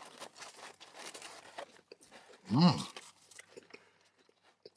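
Close-up biting and chewing of crunchy fried food, with crisp irregular crunches, broken by a short hummed "mm" of approval about halfway through, then a few faint chewing clicks.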